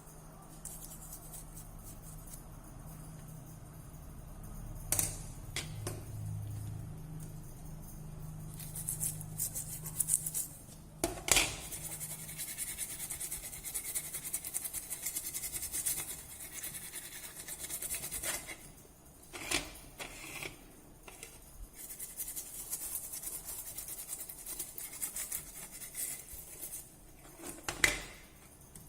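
Scratching and rubbing of hand tools working on a small phone's parts, with a few sharp clicks or taps and a faint low hum in the first half.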